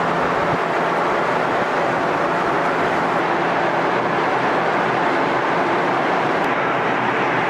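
A steady, even mechanical din with a faint low hum underneath, unchanging throughout.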